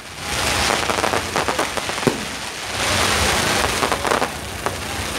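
Fireworks crackling overhead: a dense fizz of countless tiny pops from gold crackle shells, swelling in two waves, with a few sharper pops mixed in.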